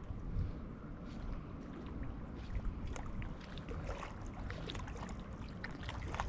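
Wind rumbling on the microphone, with faint scattered ticks.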